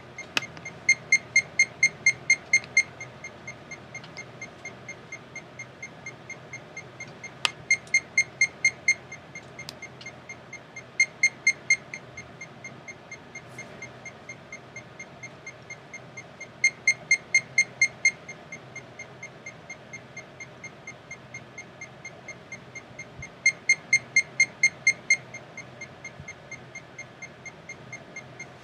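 Short, high-pitched computer beeps from a wall-detection program, about five a second. They get louder in five stretches of a second or two each, the sign that the depth camera has come within half a metre of a wall.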